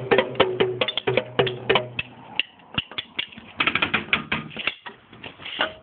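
Small belt-mounted drums struck in fast, irregular flurries. The drum's ringing tone stops about two seconds in, and the later strikes are sharper clicks in short bursts.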